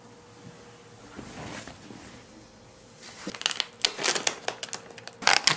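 Plastic takeout packaging crinkling and rustling in quick, irregular bursts as food containers and bags are unwrapped, starting about three seconds in.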